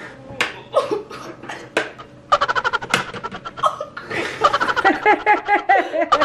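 A few sharp clicks as the Pie Face game's handle is cranked. Then, from about two seconds in, loud laughter from two boys breaks out and runs on.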